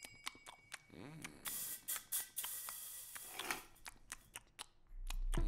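A string of short, dry clicks and snips with a few brief hissing swooshes, sound-design effects for a teaser. A deep bass tone swells in near the end as the music starts.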